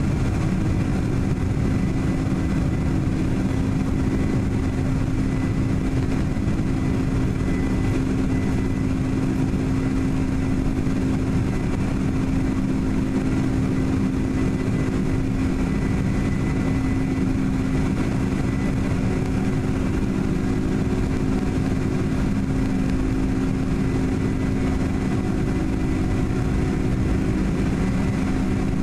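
Boeing 747-400 jet engines running steadily at low taxi thrust, heard inside the passenger cabin: a steady drone with a low hum and a faint high whine.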